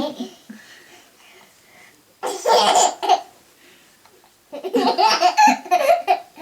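A young child laughing in two bursts, the first about two seconds in and a longer one from about four and a half seconds in.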